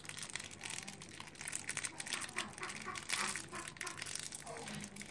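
A foil and plastic chocolate wrapper crinkling as it is folded and twisted shut by hand, in a dense run of small, sharp crackles.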